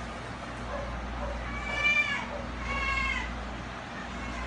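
A domestic cat meowing twice, two short falling calls about a second apart.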